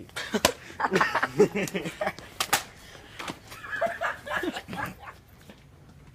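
Young men laughing and snickering with some muffled, unclear talk, and a couple of sharp knocks, one near the start and one about two and a half seconds in; it quietens near the end.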